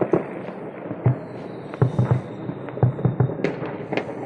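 Fireworks going off: a string of irregular bangs and pops, several in quick succession, with a faint high whistle for about two seconds in the middle.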